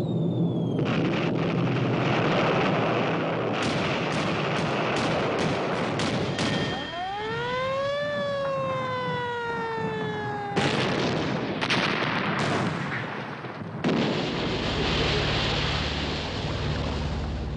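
Battle sound effects: a dense din of gunfire and explosions with repeated sharp cracks of shots. In the middle, a siren wail rises for about a second and a half, then slowly falls and cuts off. More shots follow, and a deep rumble runs through the last few seconds.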